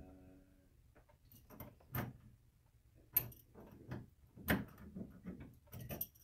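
Adjustable wrench clicking and knocking against the brass nut and fittings of a sink supply line at its shut-off valve while the nut is loosened, a string of sharp metallic clicks about a second apart. A short hum comes at the very start.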